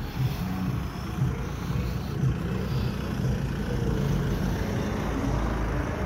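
A car's engine running close by as the car moves slowly alongside, a steady low rumble that gets heavier in the last second or two.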